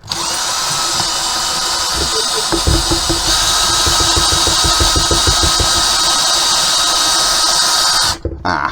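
Power drill driving a screw, its motor running steadily for about eight seconds with a rapid low knocking from about two and a half seconds in, then cutting off suddenly.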